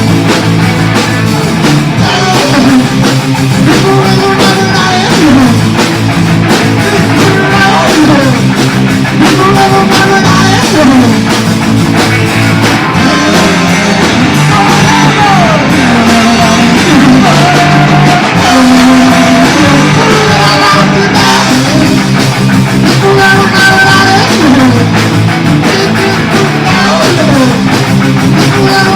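Punk rock band recording: electric guitar and drum kit playing a loud, steady song, with a singing voice over them.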